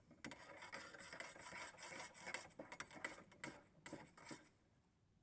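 Kettle heating to the boil, giving a faint, uneven hiss and rustle as it just starts to steam; it fades out about four and a half seconds in.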